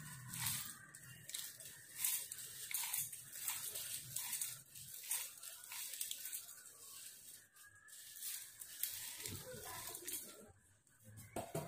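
Dry roasted spices (dried red chillies, curry leaves, lentils and seeds) rustling and crackling as a hand scoops them by the handful into a steel mixer-grinder jar, in irregular crisp rustles and rattles.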